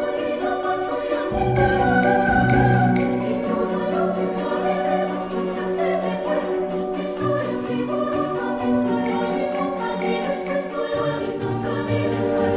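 Slow orchestral background music with held, wavering choir-like voices.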